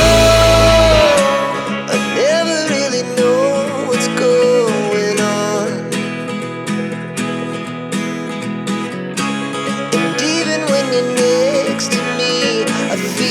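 Background music: a song with plucked guitar over a wavering melody line. The heavy bass drops out about a second in.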